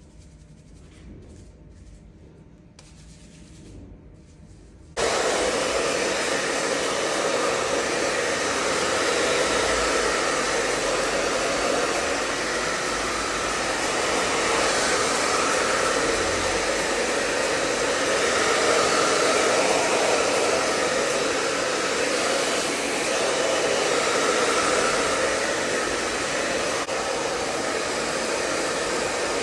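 Hand-held hair dryer switched on about five seconds in, then blowing steadily with gentle swells in level while the freshly cut hair is dried and combed into place.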